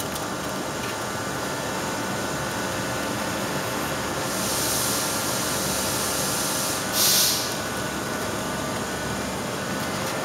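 Two short hisses of air escaping from a car tyre's valve while the inflator hose's screw-on connector is threaded onto it: one about four seconds in and a shorter, louder one about seven seconds in. Under them runs a steady low hum.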